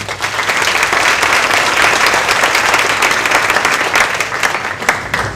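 Audience applauding loudly, a dense patter of many hands clapping that thins out into a few last claps near the end.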